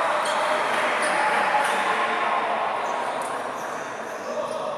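Spectators cheering and shouting at a basketball game, a burst of crowd noise that slowly dies down over a few seconds, with a basketball bouncing on the court.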